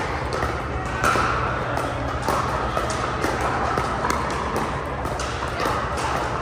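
Pickleball paddles striking plastic balls: a string of sharp pops, several a second, from ongoing play, over a background murmur of voices.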